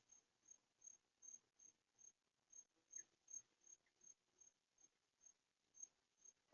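An insect chirping faintly and steadily: short, high, evenly spaced chirps, a little over two a second.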